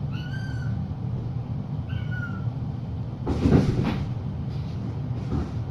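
Kitten meowing twice, two short high mews about two seconds apart, over a steady low hum. About three seconds in there is a louder burst of rustling.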